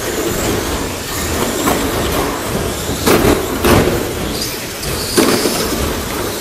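Radio-controlled short course trucks racing in a sports hall: steady motor and tyre noise, a brief high motor whine, and several sharp knocks as the trucks hit each other and the track boards, echoing in the hall.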